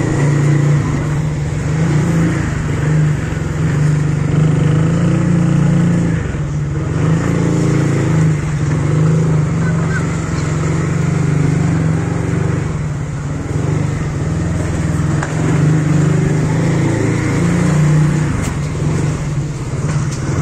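Small car engine idling steadily.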